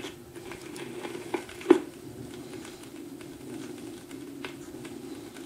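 Stylus running in the lead-in groove of a 7-inch 45 rpm vinyl single: surface noise with scattered clicks and pops over a steady hum. There is one loud pop a little under two seconds in.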